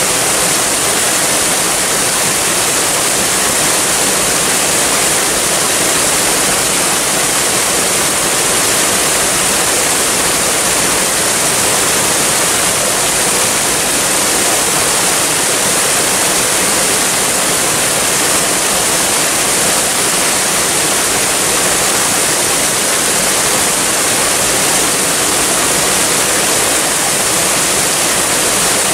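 Waterfall: a steady, unbroken rush of falling water, with no changes or separate splashes.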